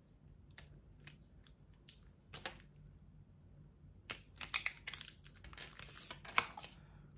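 Light scratchy clicks and crinkles of cut adhesive vinyl being weeded by hand, tiny cut-out loops picked off the backing sheet, with a denser run of crackling about four seconds in.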